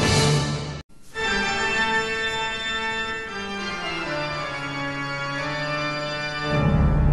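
Soundtrack music: a loud passage cuts off suddenly just before a second in, followed by held, slowly changing chords. Fuller, louder music with a strong bass comes back near the end.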